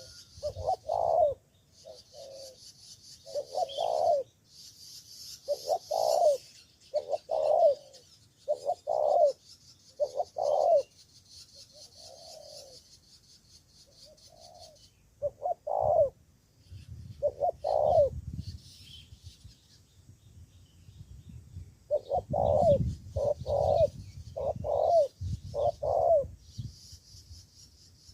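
Spotted dove (cu gáy) cooing: a male decoy bird giving its cooing call in groups of short, repeated notes with a few pauses between phrases. A high buzzing hiss comes and goes behind it.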